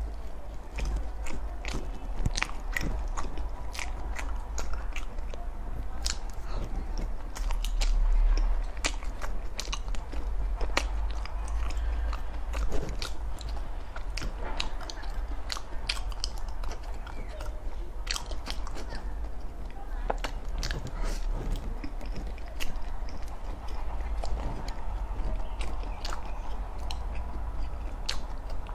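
Close-miked chewing and biting of soft cocoa-dusted, cream-filled mochi: wet mouth clicks and smacks at an irregular pace, over a steady low hum.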